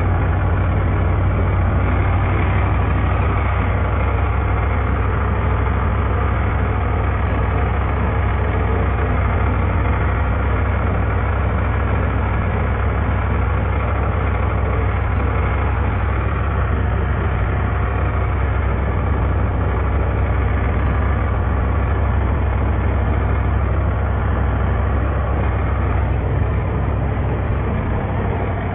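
New Holland farm tractor's diesel engine running steadily as the tractor drives along, heard close up from the driver's seat as a strong, even low hum.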